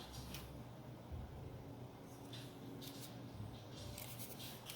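Faint handling noises: a few brief, soft rustles and scrapes over a low steady hum.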